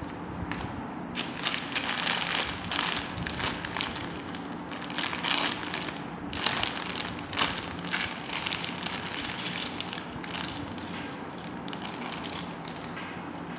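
Clear plastic bags holding small plastic model parts crinkling and crackling as they are handled, busiest in the first half and quieter near the end.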